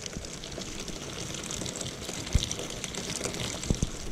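Rainwater running out of a gutter downspout and splashing onto the ground, over a dense patter of rain, with a few dull low thumps near the end.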